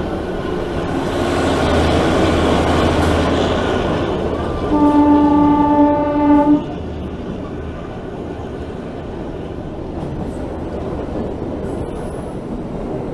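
Narrow-gauge train running with a steady rumble of wheels and engine, while the ZDM-3 diesel locomotive's horn sounds one blast of about two seconds near the middle.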